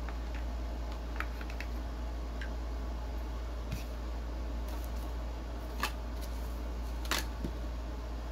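Cardboard packaging being handled on a tabletop: scattered light clicks and taps, the two loudest in the second half, over a steady low hum.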